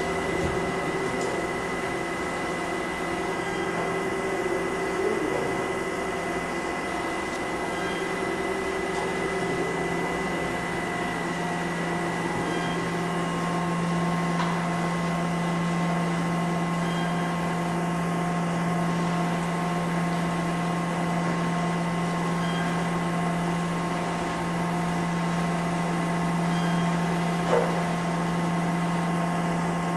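MINI-STAR automatic soymilk-making machine running: a steady machine hum with several held tones. The lowest tone grows stronger about a third of the way in, and there is one brief click near the end.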